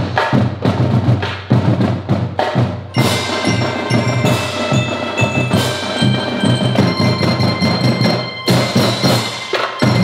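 Melodica marching band playing: drums and mallet bells strike loud accented hits together, with melodica chords held over the percussion through the middle and more strikes near the end.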